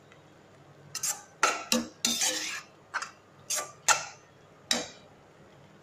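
Stainless steel slotted spoon scraping and knocking against a nonstick frying pan while stirring a thick onion-tomato masala: a series of short strokes, one slightly longer scrape among them, starting about a second in and stopping about a second before the end.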